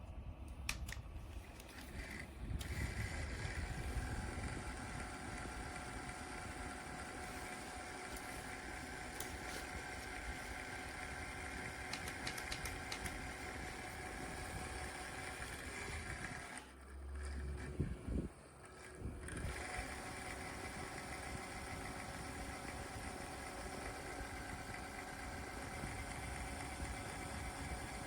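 Small rechargeable clip-on USB desk fan running with a steady whir and a whine. It briefly drops out partway through with a few low bumps, then runs on.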